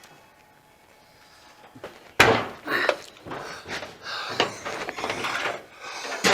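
Quiet at first, then a loud metallic bang about two seconds in, followed by a run of clanks and knocks as a heavy steel truck door is handled and shifted into place.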